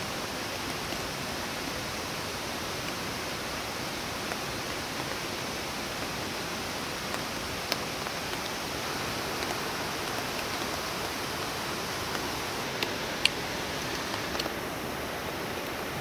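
Steady rushing of a waterfall and mountain stream, with a few faint clicks over it.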